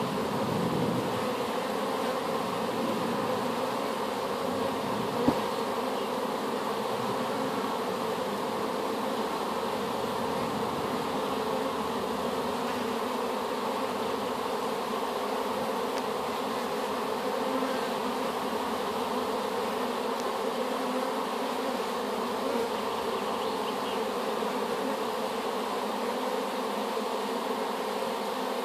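Many honeybees buzzing steadily at a wooden hive entrance, a swarm freshly housed in the hive flying in and out. A single sharp click about five seconds in.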